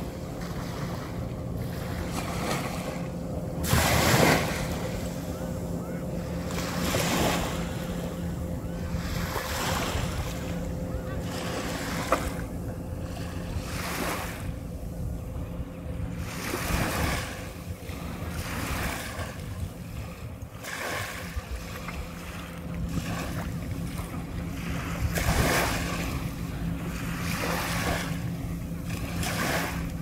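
Small waves washing onto a sandy beach in repeated surges every second or two, the biggest about four seconds in, over a faint steady low hum.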